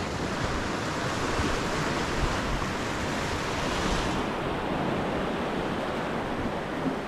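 Sea surf washing and breaking over rocks, a steady rushing hiss, with wind buffeting the microphone as a low rumble. The highest part of the hiss thins out about four seconds in.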